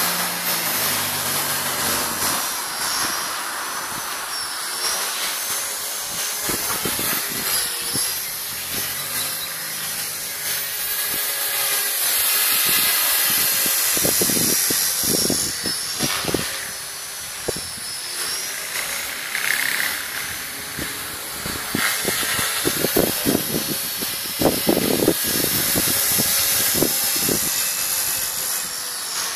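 ALZRC 450-size electric RC helicopter flying flips. The high whine of its motor and rotor head wavers up and down as the load changes, under a rush of rotor-blade noise. In the second half there are gusty bursts of rushing noise.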